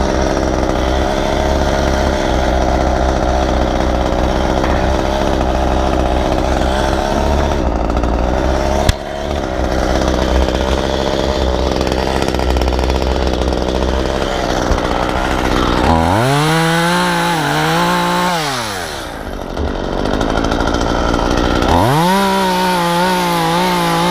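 Chainsaw running steadily, then revved up and back down twice in the last several seconds. A single sharp click about nine seconds in.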